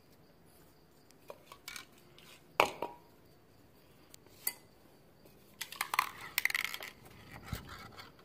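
Scattered clinks and knocks of a metal spoon being handled, with a louder knock about two and a half seconds in and a quick run of rattling clicks around six seconds in.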